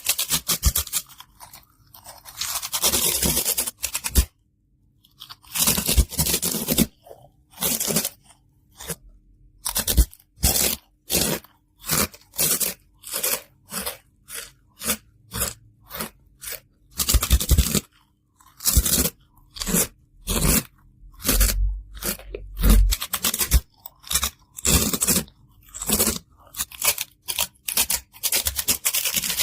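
Crunchy fried Far Far snack being bitten and chewed close to the microphone: a steady run of loud, crisp crunches, roughly one a second, with a brief silent pause a few seconds in.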